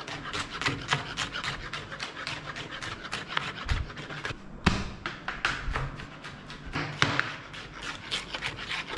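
Kitchen knife chopping onion on a plastic cutting board: quick, even strokes at about five a second, with a couple of harder strikes.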